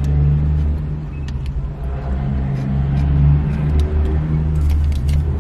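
Car engine idling, heard inside the cabin as a steady low hum, with a few soft clicks of chewing.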